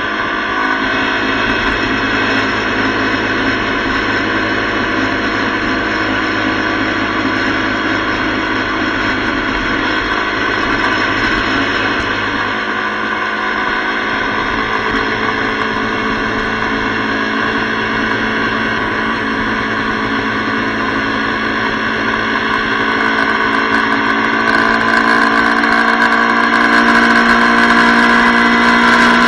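Motorcycle engine running at steady highway cruising speed, with wind and road noise, recorded on the bike itself. It grows louder about 25 seconds in.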